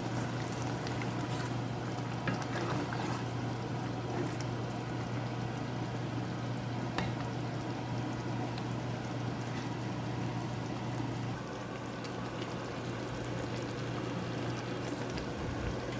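Ramen noodles simmering in a cornstarch-thickened gravy: a steady bubbling and sizzling, over a steady low hum.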